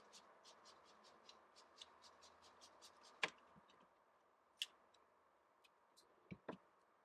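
Faint, even ticking about five or six times a second, stopping about three seconds in with a sharp click, followed by a few scattered clicks and two soft knocks near the end: handling of a snap-off utility knife and cardboard pieces.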